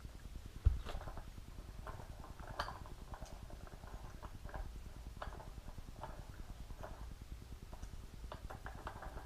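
Scattered light clicks and taps from handling small wiring parts and a bulb socket on a workbench, with one louder low thump less than a second in.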